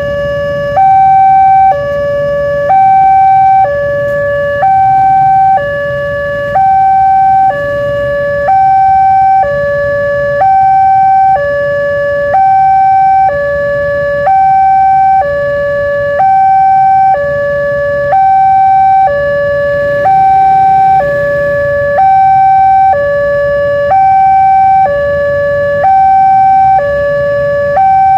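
Railway level-crossing tone siren sounding its warning for an approaching train: a lower and a higher tone alternating, each held about a second, the higher one louder. A low traffic rumble runs under it.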